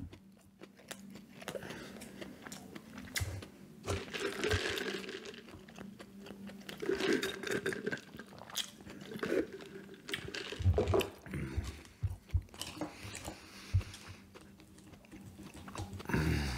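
A person eating McDonald's food close to the microphone: chewing and biting, with irregular short mouth clicks and swells of noise.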